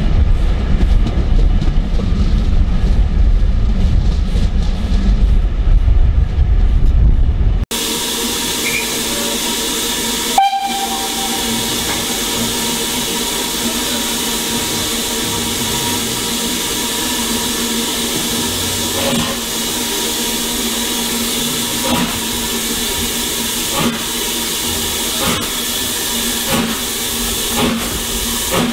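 Carriage of a moving steam train: heavy low running rumble. After a cut, BR Standard Class 4 4-6-0 No. 75069 stands with steam hissing steadily, gives a short whistle about ten seconds in, and in the last third starts to pull away, its exhaust beats coming slowly at first and then quicker.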